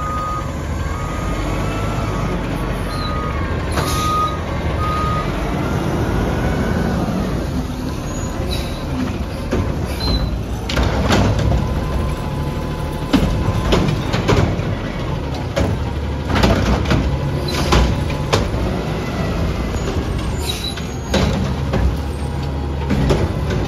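Automated side-loader garbage truck's engine running under the whine of its hydraulic lifting arm. In the second half, bangs and clattering come as the arm shakes recycling carts out into the hopper and sets them down on the pavement.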